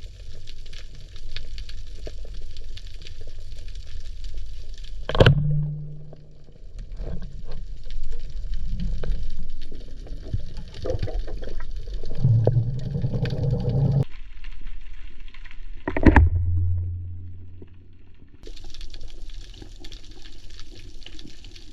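Underwater sound on a spearfisherman's camera: a steady low rush of water and bubbling, broken by two sharp loud knocks, about 5 seconds and 16 seconds in, each followed by a brief low hum.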